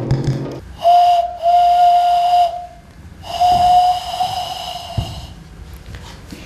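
A person blowing into cupped hands to make a breathy hand whistle: three held hoots at one steady pitch, the first short, the last the longest.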